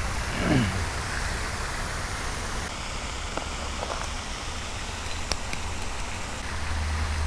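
Steady splashing hiss of a pond fountain spraying water, with a few faint clicks from a backpack being handled.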